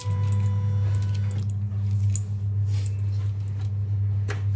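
Portable CNY embroidery machine running with a steady low hum, and a sharp click near the end.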